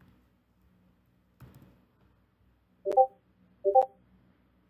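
Discord notification sound: two short pitched chimes a little under a second apart, about three seconds in, as messages from the bot arrive.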